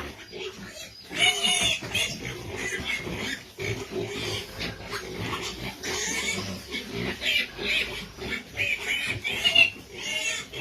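Pig calling in a continuous run of short, irregular grunts, with a few louder calls about a second in and near the end.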